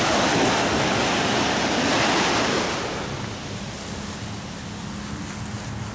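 Sea wave washing up the beach in a sheet of hissing foam, loud for the first two and a half seconds, then settling to a softer wash as it spreads over the sand.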